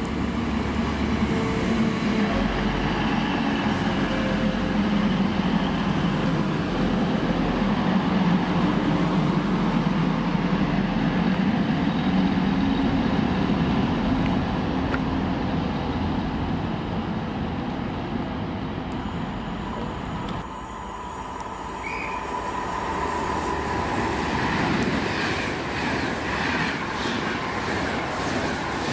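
A TransPennine Express Class 185 diesel multiple unit runs along the platform, its underfloor diesel engines and wheels making a steady low rumble that fades. After a cut, a Virgin Trains Class 390 Pendolino electric train comes past fast and close near the end, a rising rush of wheel and rail noise with rapid clicks over the rail joints.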